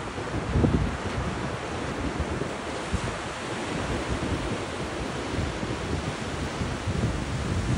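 Ocean surf breaking and washing up a sandy beach in a steady, unbroken wash. Wind buffets the microphone in uneven low gusts, with the loudest surge about half a second in.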